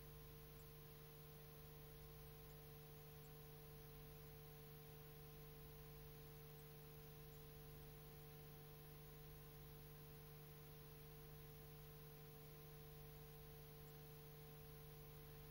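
Near silence: a steady low electrical hum and faint hiss, the noise floor of the recording.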